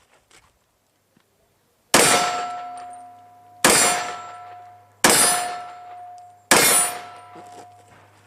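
Four sharp metallic clangs about one and a half seconds apart, each ringing out and fading over a second or more: steel targets struck by pistol rounds.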